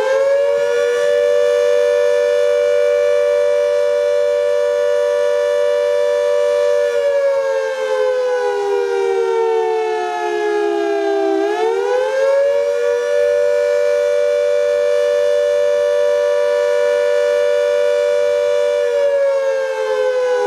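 Civil defense siren sounding as a tornado warning alarm. It winds up to a steady high wail and holds it, slides slowly down in pitch, winds back up about halfway through and holds again, then begins to wind down near the end.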